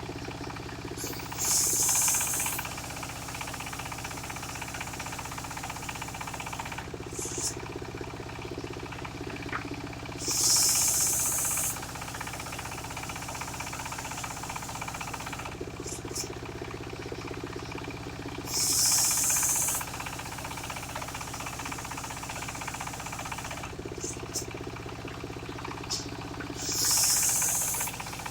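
Engine-driven mobile circular saw running steadily, its blade biting into wood for a second or so about every eight seconds, four times, each cut louder and higher-pitched than the running hum.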